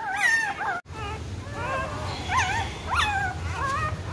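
Very young puppies whimpering: a string of short, high-pitched squeaky cries that waver up and down in pitch, several overlapping.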